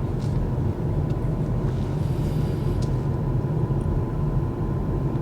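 Steady low road and tyre rumble heard inside the cabin of a moving Kia EV6 electric car.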